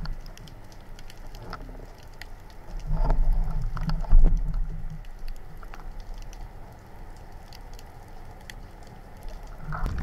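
Underwater sound through a speargun-mounted camera: a steady crackle of faint scattered clicks over a low water rumble, with a louder surge of low water noise and a couple of knocks about three to four seconds in.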